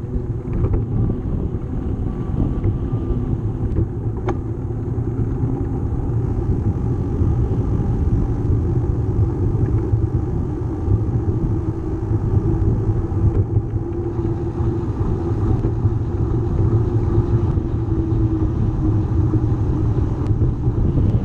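Steady low rumble of riding a bicycle along a concrete cycleway, with wind on the bike-mounted camera's microphone and tyre noise.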